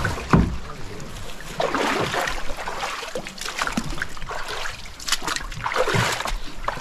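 Water splashing and sloshing in several uneven bursts, with a couple of sharp knocks among them.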